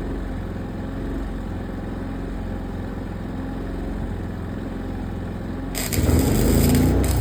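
An engine idling steadily. About six seconds in, a welding arc strikes for a tack weld, and a loud hiss sets in over the engine and keeps going.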